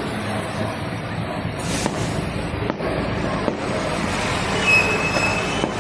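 Fireworks going off: several sharp bangs over a steady, dense background din, with a brief high whistle near the end.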